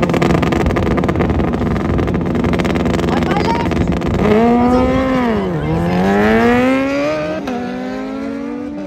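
A drag-race vehicle's engine, loud, held at high steady revs, then launching about four seconds in: the revs dip and then climb again, with a gear change near the end before settling into a steady run.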